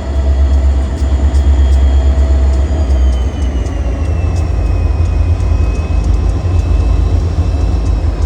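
EMD SD40-2 locomotive's 16-cylinder two-stroke diesel rumbling as the freight train passes, a deep steady low drone. Thin high squeals slowly slide down in pitch over it.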